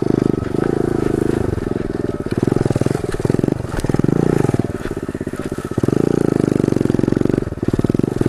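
SSR DX 110cc pit bike's single-cylinder four-stroke engine running as it is ridden, the throttle opened and eased off several times so its loudness swells and dips, with lulls around two and a half, five and seven and a half seconds in.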